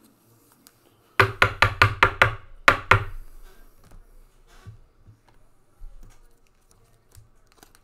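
A quick run of sharp knocks, about six in a row and then two more about half a second later, each with a short ring, followed by faint scattered clicks of handling.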